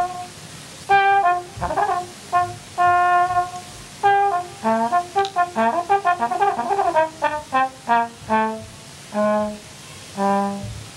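Slide trombone playing a solo melody: held notes in short phrases broken by brief pauses, a quick run of rapid notes in the middle, then a few slower, lower held notes near the end.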